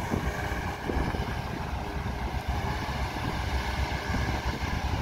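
Takeuchi TB290 amphibious excavator's diesel engine running steadily as the machine swings its upper structure and boom round, with wind buffeting the microphone.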